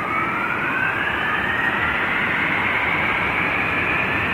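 Jet airliner engines spooling up: a whine rises steadily in pitch over a broad rush of engine noise, which slowly grows louder.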